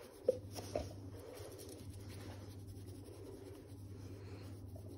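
Soft rustling and scratching of a hand rubbing a dog's fur, with two small clicks in the first second, over a steady low hum.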